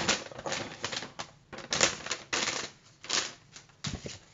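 Paper rustling and crinkling in quick irregular rustles as packing paper and a paper packing slip are handled in and over a cardboard shipping box, with a low knock near the end.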